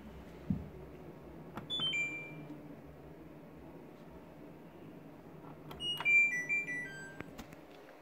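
LG F12B8ND front-loading washing machine's control panel beeping: a quick three-note falling chirp about two seconds in, then a longer falling tune of several notes about six seconds in, over the machine's low hum. A dull knock sounds about half a second in.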